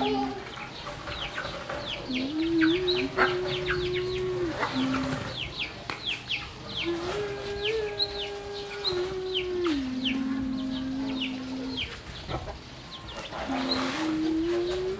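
Chickens: many short, high downward peeps like chicks, with clucking. Under them a low steady drone holds for a few seconds at a time, shifting its pitch in steps and breaking off between stretches.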